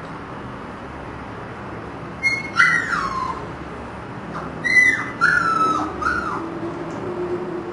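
Siberian husky puppy whining: high-pitched whines that each slide down in pitch, one about two seconds in and three more in quick succession from about four and a half seconds, then a fainter, lower, drawn-out whine near the end.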